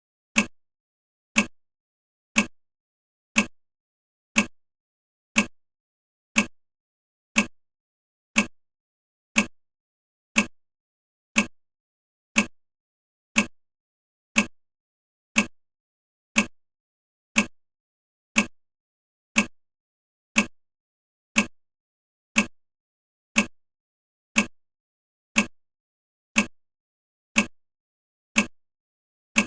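Clock-tick sound effect of a countdown timer: one short, sharp tick every second, all alike and evenly spaced, marking the seconds as the countdown runs.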